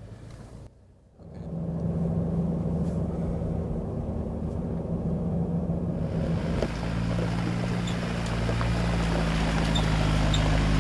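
4x4 SUV engine running steadily as the vehicle drives, a low drone with road and tyre noise. It drops out briefly about a second in, then turns noisier and grows louder toward the end.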